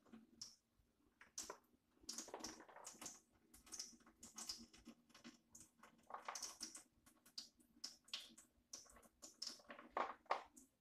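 Soaked black-eyed peas being handled in a container: soft, irregular clicks and rustles as the beans shift against each other.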